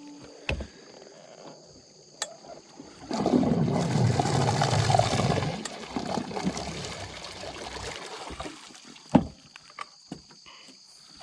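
A steady high drone of insects, joined about three seconds in by a few seconds of loud rustling, rubbing noise that fades out, with a few sharp knocks, the loudest near the end.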